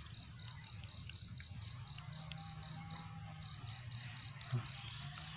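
Insects chirping in a steady, evenly pulsing high trill over a faint low rumble, with a few light clicks and one sharp knock about four and a half seconds in.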